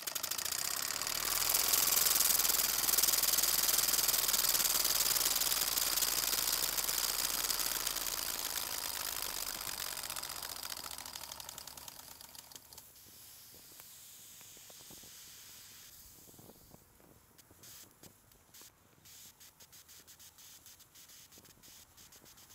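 Vintage West German vertical model steam engine running on steam: a loud, fast hiss of exhaust steam with rapid ticking, fading after about twelve seconds into quieter, uneven puffs and ticks as the engine runs down.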